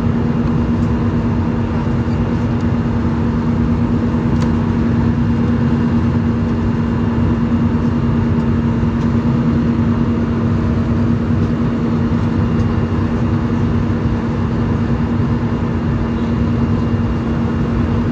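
Steady in-flight cabin noise of an Airbus A320-200: an even rush of engine and airflow noise with a constant low hum running through it.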